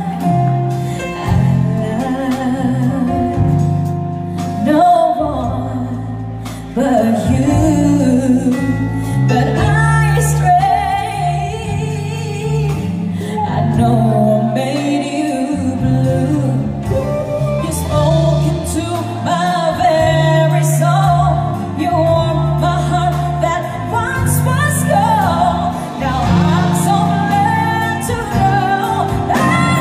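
Live music: a woman singing a slow soul ballad with long held, wavering notes, backed by a band with strings, drums, bass and keyboards.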